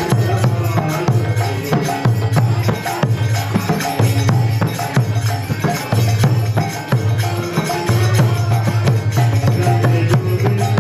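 Live kirtan devotional music: a harmonium playing under a fast, steady beat of jingling hand percussion.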